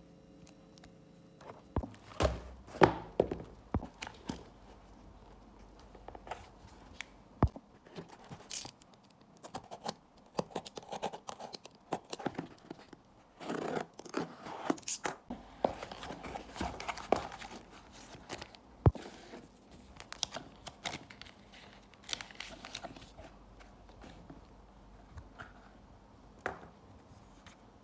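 Packaging being opened by hand: wrapping tearing and crinkling, with many sharp clicks and taps. The handling is busiest through the middle and thins out to a few taps near the end.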